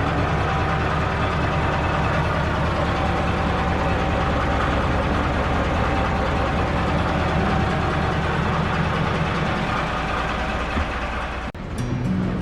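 Heritage railway diesel locomotive engine running steadily with a low hum. About eleven seconds in it cuts off abruptly and music begins.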